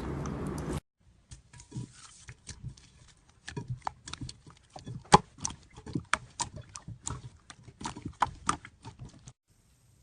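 Slime squeezed and pressed by hand, making a quick, irregular run of small sticky clicks and pops, several a second. It is preceded by a louder crunching sound that cuts off less than a second in.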